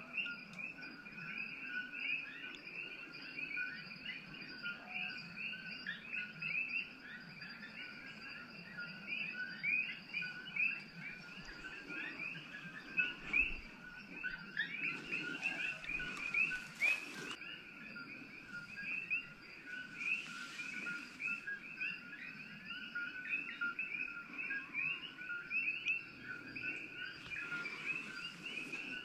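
Dense evening chorus of coqui frogs: many overlapping short, rising two-note calls running on without a break. A few bursts of leaf rustling about halfway through and again near the end.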